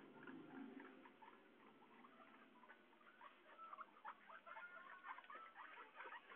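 Guinea pigs making faint, rapid, irregular squeaks and chirps, many a second, growing denser and louder about halfway through.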